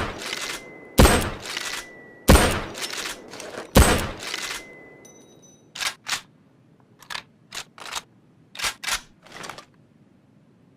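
Mosin-Nagant M38 bolt-action carbine firing three shots, roughly a second and a half apart, each a sharp crack with a ringing echo dying away over about a second. Then, from about six seconds in, a run of short, quieter metallic clicks in twos and threes: the rifle's bolt being worked.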